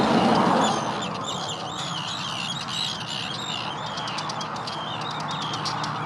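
Many birds calling at once: short high notes that rise and fall, overlapping without a break. A broad rushing noise is loudest in the first second, then eases.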